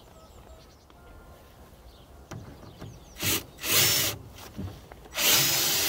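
Cordless drill driving a wood screw through an OSB board into a timber beam: quiet at first, then a few short bursts of the drill and a longer steady run about five seconds in.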